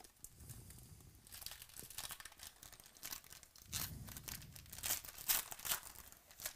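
A foil Panini Prizm football card pack being torn open by hand, its wrapper rustling in a run of sharp crinkles, loudest a few seconds in and near the end.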